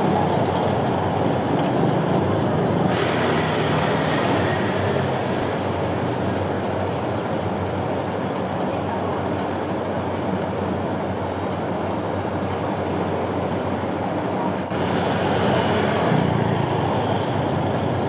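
City street ambience: a steady rumble of passing traffic, changing in tone at about three seconds and again near fifteen seconds.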